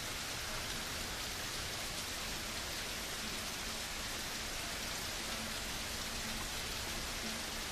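Heavy rain pouring steadily, an even hiss of rain hitting a wet patio, steps and lawn.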